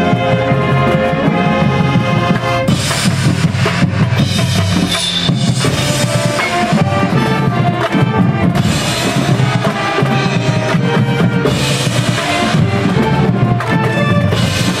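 High school marching band playing loudly: brass with drums and percussion, and the front ensemble's marimbas and vibraphones close by.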